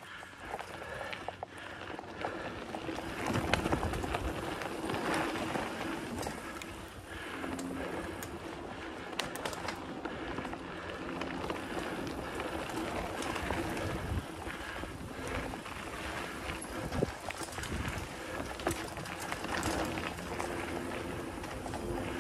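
Specialized Stumpjumper mountain bike riding fast along a dirt singletrack: tyres running over packed dirt and roots, and the bike rattling with many small knocks over the bumps.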